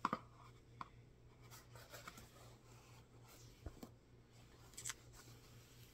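Faint rustling of a fat quarter of quilting cotton being handled and unfolded, with a few soft, short scuffs over low room hum.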